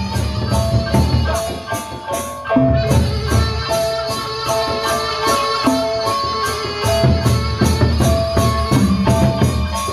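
A Lombok Sasak gendang beleq ensemble playing: big barrel drums beating under a melody of pitched metal notes and steady cymbal clashes about four times a second. The drums drop out for a moment about two seconds in and come back in just before three seconds.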